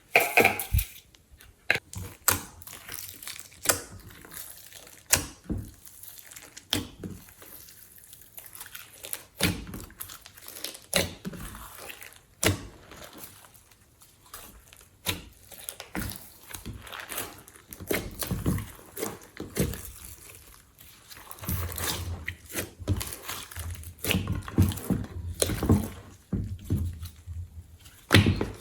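Glossy slime being worked and mixed, giving wet, sticky clicks, pops and squelches at irregular intervals.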